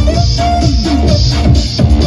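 Dance music with a steady beat of about two beats a second over heavy bass, played loud for the children's dance.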